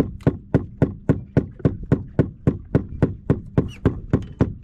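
Rapid, even knocking, about three to four sharp knocks a second, keeping a steady rhythm.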